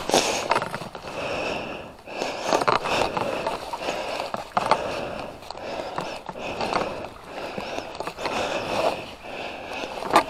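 Ski boot buckles being tightened by gloved hands: a few sharp clicks among irregular scraping and rustling of gloves, boot shells and snow.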